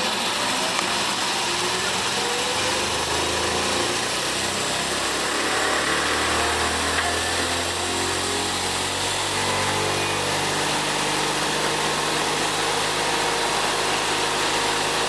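Electric drive motor of a tractor converted from diesel to battery power, running steadily under a power test with a whining hum; its pitch shifts a little around the middle and the deepest part of the hum drops away near the end.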